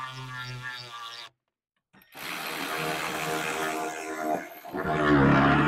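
Milwaukee M12 cordless ratchet running in short bursts, driving hose-clamp screws tight on the clutch fan's ducting. Its motor whine cuts off about a second in, starts again, and near the end runs louder and lower in pitch.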